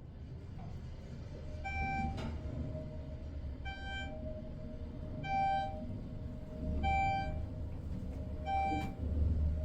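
Elevator car travelling up with a low rumble and a steady hum. A short electronic beep sounds five times, about every second and a half to two seconds, as the car passes each floor.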